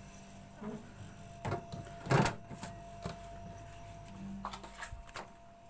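A handful of irregular clicks and knocks from tools and fittings being handled, the loudest about two seconds in, over a faint steady hum.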